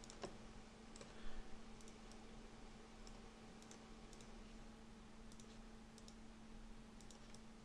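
Faint, scattered clicks of a computer mouse and keyboard over a steady low hum, close to near silence.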